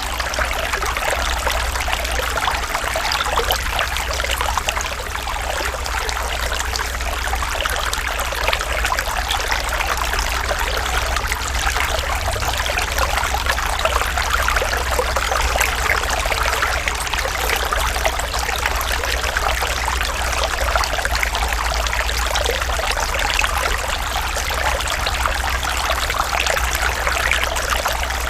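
Natural running water trickling steadily and evenly, with a steady low rumble underneath.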